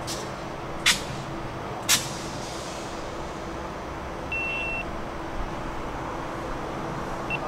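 Three short, sharp hisses of compressed air about a second apart from the standing electric trains, then one short beep about four and a half seconds in, over a steady low hum.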